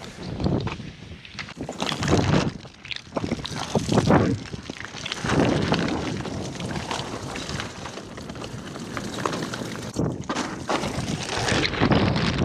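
Water pouring out of a bass boat's hull at the stern and splashing onto pavement, in uneven surges, with wind buffeting the microphone.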